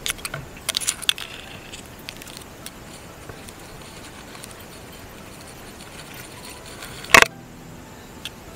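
Metal clicks and rattling from a fishing lure and pliers as a hook is worked out of a small fish's mouth, busiest in the first second or so. A short loud bump comes about seven seconds in.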